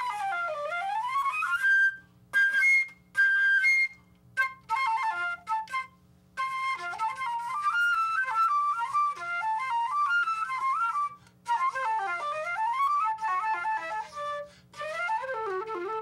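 Solo silver concert flute playing: sweeping runs down and back up, a few short detached notes, then a flowing melody, in phrases broken by brief pauses for breath.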